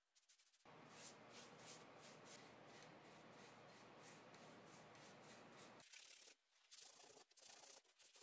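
Faint brushing of a bristle wax brush working beeswax into a painted wood dresser top, in short strokes about three a second. About six seconds in it gives way to scattered, broken rubbing.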